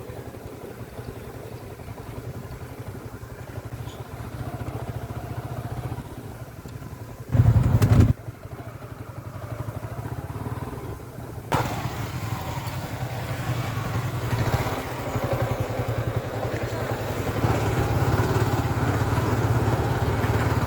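Yamaha R15 V3's single-cylinder engine running steadily as the motorcycle rides a rough off-road track. A brief loud rumble comes about seven and a half seconds in, a sharp jolt follows about eleven seconds in, and the engine grows louder toward the end.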